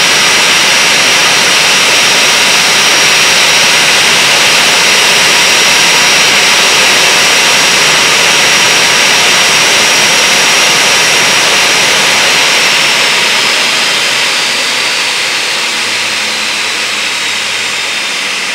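Boeing 737-300's CFM56-3 turbofan engines running at idle, a steady loud hiss with a high whine. About two-thirds of the way through, the whine starts to fall in pitch and the sound eases off as the engines spool down on shutdown.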